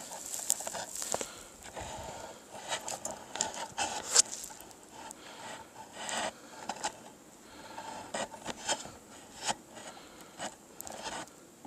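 Close handling noise while a camera is being set up: irregular scraping and rubbing with scattered sharp clicks.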